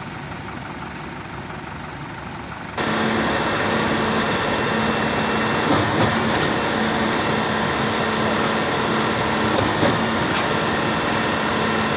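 Diesel engine of a truck-mounted concrete pump running steadily. About three seconds in it abruptly gets louder and holds a steady hum, as when the engine speeds up to drive the boom's hydraulics.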